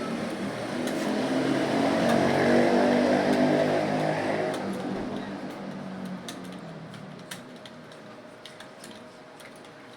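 Computer keyboard keys clicking as someone types, while a road vehicle passes outside, growing louder to a peak about three seconds in and then fading away.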